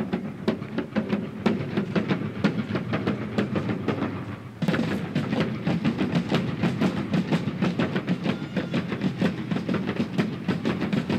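Marching-band drums in a parade, snare and bass drum beating a steady march rhythm. The drumming grows louder and busier about four and a half seconds in.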